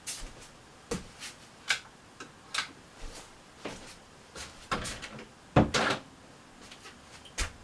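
Scattered clicks and knocks of someone moving about a small room and handling things, at irregular intervals, the loudest knock about five and a half seconds in.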